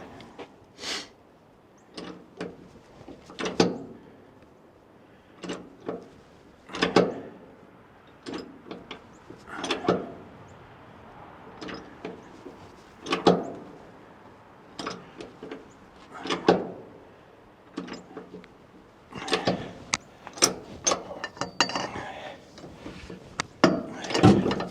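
Irregular knocks and clanks of metal parts and hand tools being handled and fitted during hand work on a truck's cab latch. There is no steady motor.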